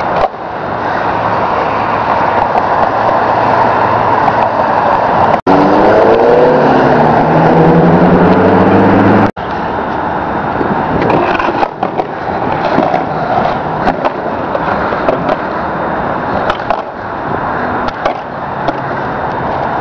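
Skateboard wheels rolling on concrete, with scattered sharp clacks of the board being popped and landed. In one clip, from about five to nine seconds in, an engine rises in pitch and then holds over the rolling.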